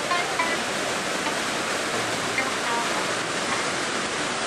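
Montmorency Falls, a large waterfall, rushing in a steady, even roar of falling water.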